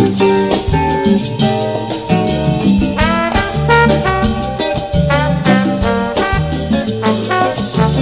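Instrumental background music in a swing-jazz style, with brass and a steady beat.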